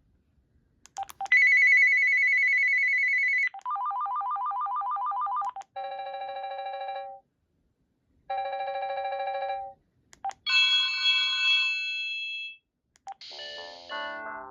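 A Uniden D3280 cordless phone handset playing through its ringtones one after another, each a second or two long, with short beeps between them. A high trilling warble comes first, then a lower trill, then a two-tone ring played twice, then a bright chiming run, and a melody begins near the end.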